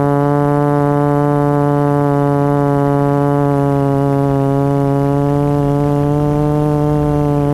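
Motor and propeller of a radio-controlled FPV aircraft in flight, heard from the camera on board: a loud, steady hum with one clear pitch held level.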